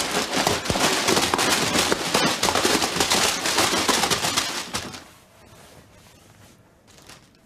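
Crisp packets crackling and crinkling as a box of them is tipped out and rummaged through. The crackling is dense for about five seconds, then dies down to faint rustles.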